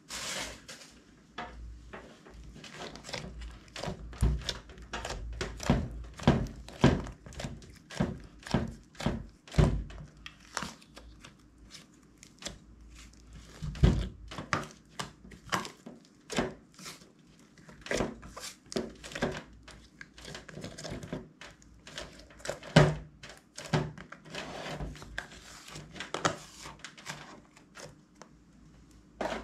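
Hands squishing and kneading soft slime in a plastic tub: irregular sticky pops and squelches, several a second, with now and then a louder thump.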